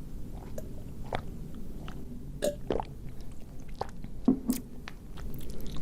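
Close-miked biting and chewing of a chocolate-coated ice cream bar: scattered sharp crunches and wet mouth clicks, loudest about two and a half and four and a half seconds in.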